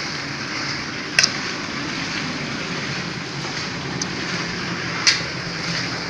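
Steady hiss of background noise with a few sharp knocks: a double knock about a second in and a louder single knock about five seconds in.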